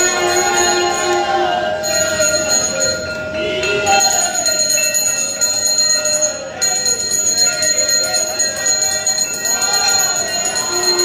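Temple bells ringing continuously, with devotional singing behind them.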